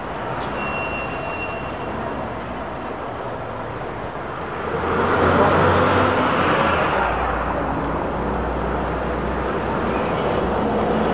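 City street traffic with a trolleybus passing close by: the noise swells about five seconds in and a low rumble carries on to the end. A brief high squeal is heard near the start.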